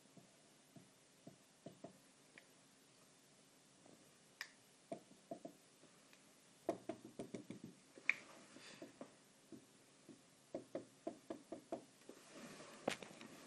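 Marker pen on a whiteboard: short taps and strokes, coming in quick runs about five, seven and eleven seconds in, as dashes and small marks are drawn.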